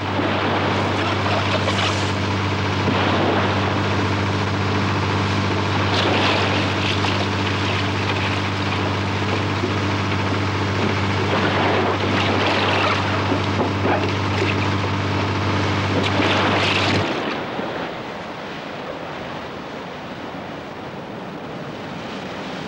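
A fast inflatable boat's engine drones at high speed while water rushes and sprays along the hull. About seventeen seconds in it cuts off abruptly, leaving a quieter wash of sea and wind.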